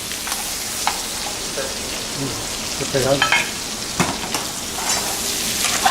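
Vegetables frying in butter in a pan: a steady sizzling hiss, with a couple of sharp clicks, about a second in and again about four seconds in.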